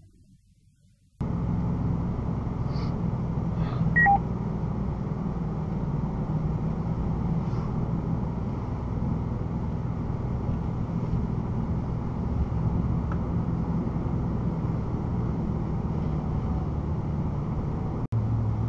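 Off-road vehicle's engine running steadily with road noise, heard from inside the cab while crawling along a snowy trail at walking pace; the drone starts about a second in. Two short electronic beeps, a higher one then a lower one, sound about four seconds in.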